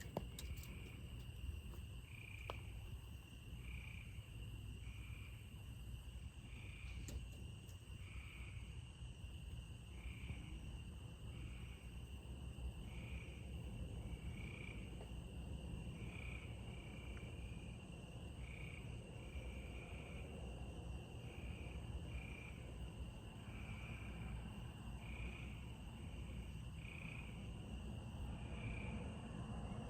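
Crickets calling at night: one steady high trill, with another insect giving short chirps about once a second, over a low background rumble.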